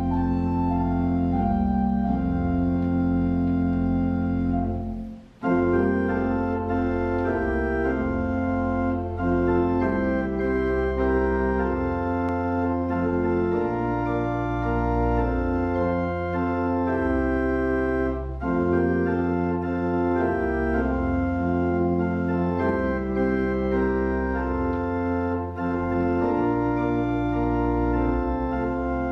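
Two-manual church organ playing a hymn tune in slow, sustained chords over a moving pedal bass, with a brief break between phrases about five seconds in.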